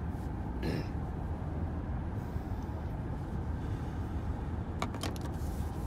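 Steady road and engine rumble inside a moving car's cabin, with a few short clicks about five seconds in.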